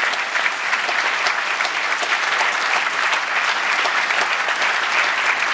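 Audience applauding: a dense, steady clapping.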